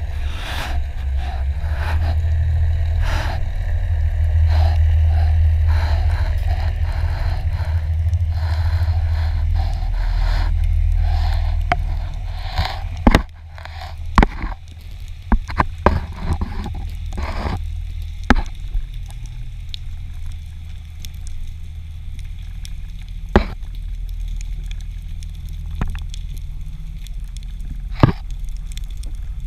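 Underwater sound on a freediver's descent: a loud low rush of water past the camera housing that eases off about halfway through, followed by a quieter hiss with sharp, scattered clicks.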